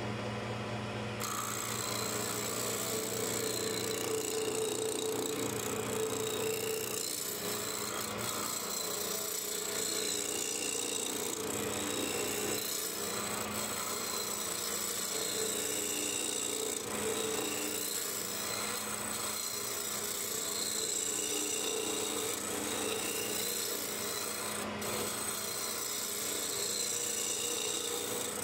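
Wood lathe running with a steady motor hum while a hand-held turning tool cuts a spinning arbutus blank. The tool's shearing hiss swells and fades as it is drawn back and forth along the wood.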